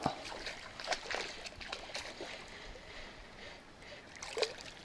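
Light, irregular splashes and trickling water from a small hooked pike being played in close to the bank.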